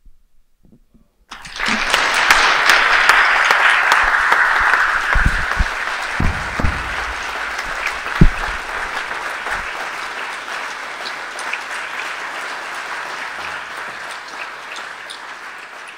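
Audience applause breaking out suddenly about a second in at the end of a song, loudest for the first few seconds and then slowly dying away. A few low thumps sound through it around the middle.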